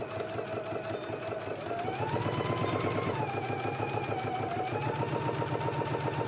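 Electric sewing machine stitching a seam, its motor whine rising in pitch about two seconds in, dipping near three seconds and rising again near five as the speed changes, over a rapid, even chatter of needle strokes.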